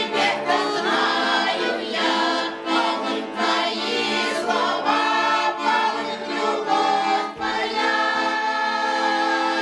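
Small amateur group of older women and men singing the chorus of a song together in Russian, accompanied by an accordion.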